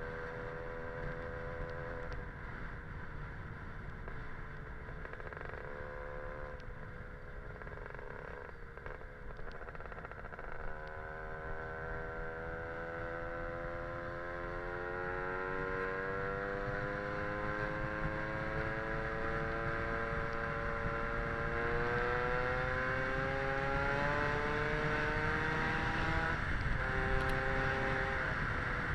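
Lambretta scooter's Casa Performance SSR265 two-stroke engine under way. Its note holds steady, sags briefly about a third of the way in, then climbs slowly for about fifteen seconds as it accelerates, drops sharply near the end and picks up again, over a low rushing noise.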